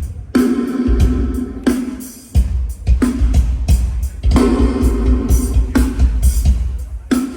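Live band playing at a soundcheck: drum kit hits over a strong bass line, with guitar on top.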